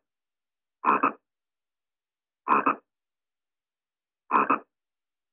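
A frog croaking: three short croaks, each in two quick pulses, coming a little under two seconds apart.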